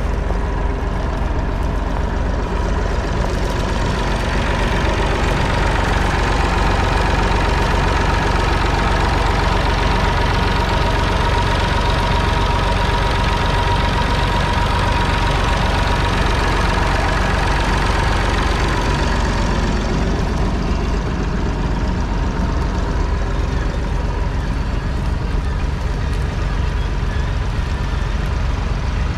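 Massey Ferguson 250's 2.5-litre three-cylinder diesel engine running steadily. It grows a little louder with a steady higher tone through the middle stretch, which fades again after about twenty seconds.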